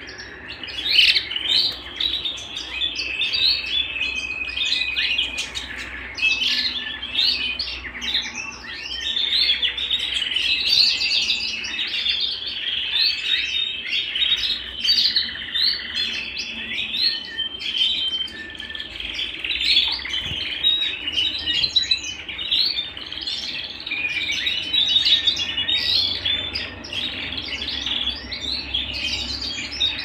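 Domestic canaries singing: a continuous run of rapid trills and chirps, with a few held whistled notes.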